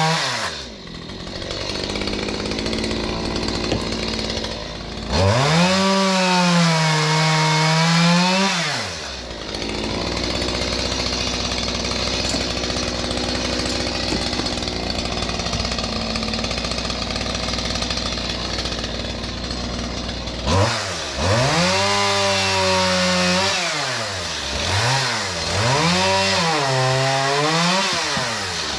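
Stihl MS181 two-stroke chainsaw cutting firewood. The engine revs up and down freely about five seconds in and again from about twenty seconds on, with several quick blips of the throttle near the end. Between these revs are long stretches in the cut, where a rough cutting noise drowns the engine note.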